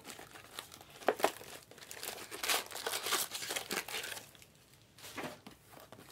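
Foil-wrapped Panini Optic Fast Break card packs crinkling as they are handled and set down in a stack. The rustling comes in several irregular bursts, with a short lull a little after four seconds in.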